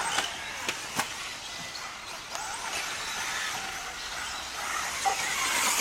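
1/10 electric off-road RC buggies racing on a dirt track: a high motor whine and tyre noise, with a few sharp clicks in the first second and a swell in level near the end.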